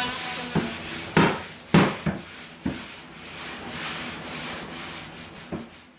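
Renovation work on wood: rough scraping or rubbing strokes broken by several sharp knocks.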